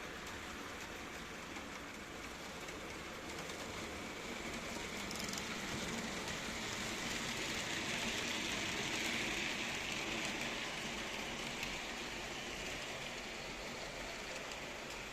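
H0 scale model train running on AC three-rail track, a steady rolling hiss that swells to its loudest around the middle and fades again as it passes.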